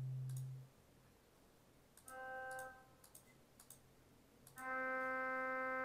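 Hauptwerk virtual pipe organ, using a sample set recorded at St. Anne's Church, Moseley, holding one sustained note through speakers as stops are switched on and off with mouse clicks. A lower tone sounds at the very start and cuts off. The note sounds for about half a second about two seconds in, then returns at about four and a half seconds with a fuller, richer tone as more stops are drawn together. Soft mouse clicks fall between the notes.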